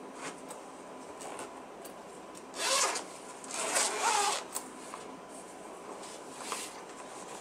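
Zipper on the top flap of a fabric rolling ball bag pulled open in two long strokes, about two and a half and four seconds in, with a few small clicks of fabric and hardware being handled.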